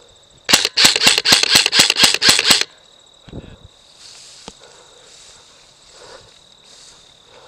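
Airsoft gun firing a rapid string of about a dozen sharp shots, roughly six a second, starting about half a second in and stopping after about two seconds.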